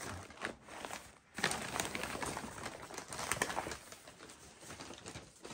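Brown kraft packing paper being pulled off and crumpled, a run of crinkling and rustling with a short pause about a second in.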